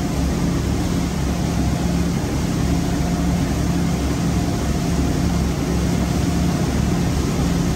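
Sea Ray powerboat's twin engines running steadily at cruising speed, with the rush of the churning wake behind the stern.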